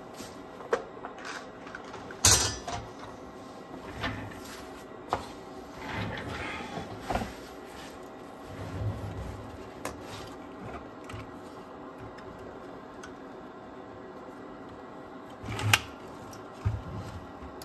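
Scattered clicks and light knocks of hands and tools working on a Technics RS-BX707 cassette deck's chassis while its power supply is taken out, with the sharpest knock about two seconds in and another near the end, over a faint steady hum.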